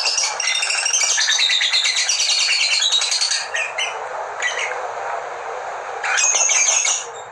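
Labet songbird singing a fast, chattering song of rapid high notes, loud for the first three seconds, then a few short bursts and another loud phrase near the end.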